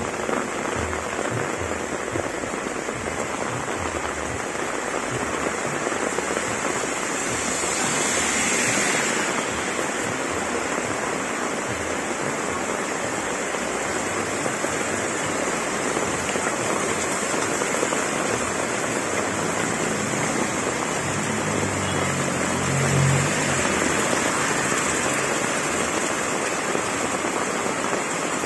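Heavy rain pouring steadily onto a road and roofs, with runoff streaming and splashing off roof edges. A low rumble swells briefly about two-thirds of the way through.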